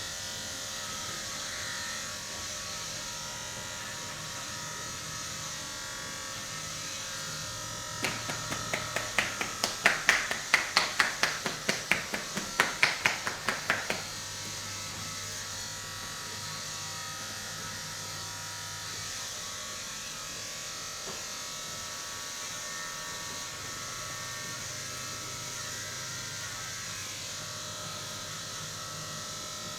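Steady buzz of an electric massager, with about six seconds of rapid rhythmic slaps about eight seconds in, roughly four a second, from percussive massage strokes on the body.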